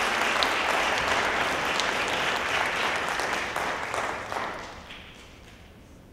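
An audience in a hall applauding, then dying away about four and a half seconds in.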